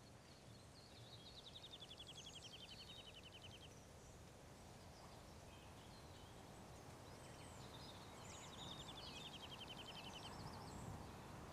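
Faint birdsong: a bird sings a rapid trill of quick repeated notes that slides downward in pitch, twice, about a second in and again around eight and a half seconds in, with a few scattered chirps over a quiet hiss of outdoor ambience.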